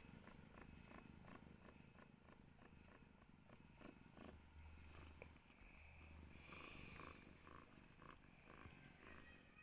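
Faint purring of a tortoiseshell mother cat being stroked just after giving birth, with soft regular clicks about four times a second. A brief rustle comes about two-thirds of the way through.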